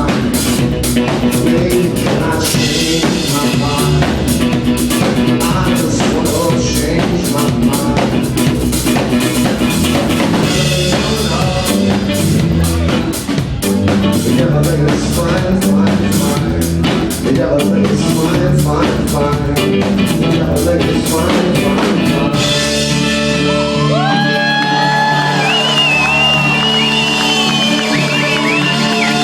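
Live band of upright bass, drum kit and guitar playing, with some singing. About 22 seconds in the drums stop and the band holds a final chord while the crowd starts to whoop.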